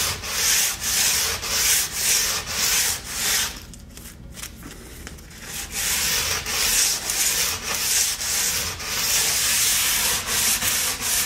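Hand file scraping along the sidewall of a ski clamped in a vise, cutting away excess sidewall plastic so the steel edge can be filed square. Quick rasping strokes come about three a second, stop for about two seconds a third of the way in, then resume.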